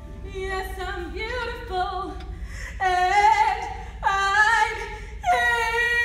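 Female singing without accompaniment, in long held notes that slide between pitches, the phrases growing louder toward the end.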